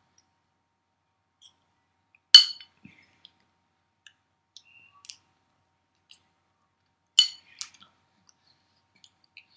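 Sparse sharp clicks: two louder ones about five seconds apart, with faint ticks in between.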